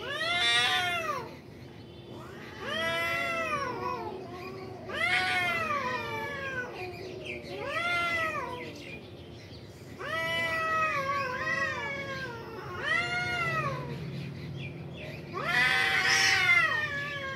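Domestic cat caterwauling in a territorial standoff with a rival cat: about seven long yowls, each rising and then falling in pitch, every two to three seconds.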